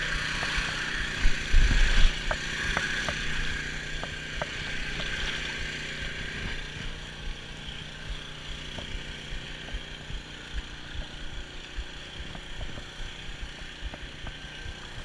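Steady hum of the electrofishing barge's engine-driven generator over the rush and splash of shallow river water, with a few low thumps between one and two seconds in.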